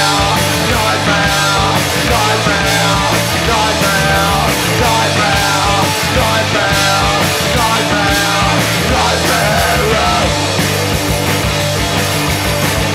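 Punk rock band playing live: electric guitars, bass guitar and drums, with the singer's last sung "nightmare" of the chorus a couple of seconds in, then the band playing on without vocals.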